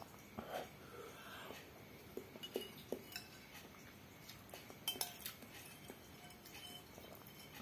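Metal spoon clinking and scraping against a glass bowl while scooping up the last of the noodles and broth: faint, scattered clinks, the sharpest about three and five seconds in.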